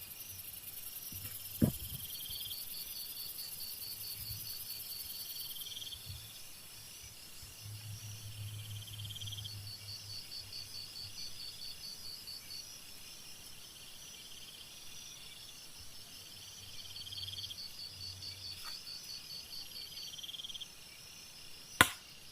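Crickets and other insects chirring in the forest, several pulsed trills overlapping and repeating, with a faint low hum coming and going underneath. Two sharp clicks break in, one about two seconds in and a louder one near the end.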